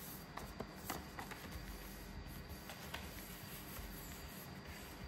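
A sheet of paper being handled and folded, pressed down into creases: faint rustling with a few sharp paper crackles, most in the first second and a half and one about three seconds in.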